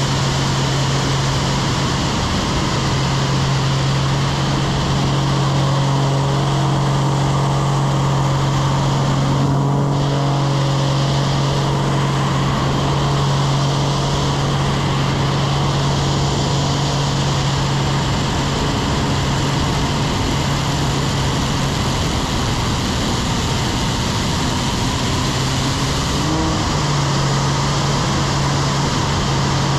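Pitts aerobatic biplane's piston engine and propeller running at high power, a steady loud drone with rushing air over the wing. The engine note shifts up slightly in pitch near the end.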